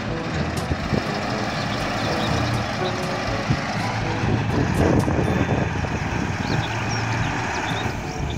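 Heavy four-axle dump truck's diesel engine running steadily as the truck crawls slowly over uneven ground.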